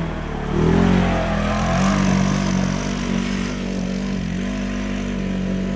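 Polaris off-road vehicle's engine revving up and down, then running at a fairly steady pitch under throttle.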